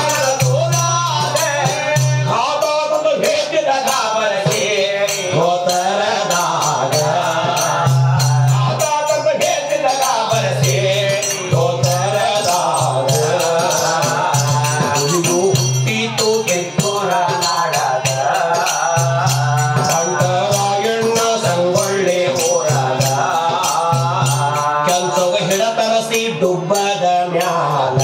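Male folk singers performing a Kannada lavani ballad, their voices rising and falling, to a hand-held frame drum and small hand cymbals keeping a quick steady beat.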